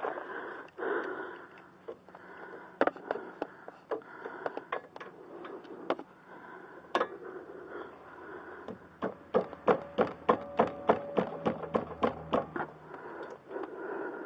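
Socket ratchet clicking as a bolt is turned: scattered single clicks at first, then a quick, even run of about four clicks a second for a few seconds, which then stops.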